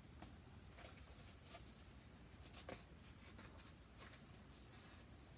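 Faint paper rustling from a hardcover picture book's pages being handled and turned: a few soft swishes over quiet room tone.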